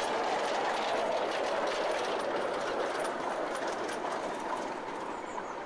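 Narrow-gauge train's open carriages rolling past on the rails with wheel clatter, the sound fading steadily as the train moves away.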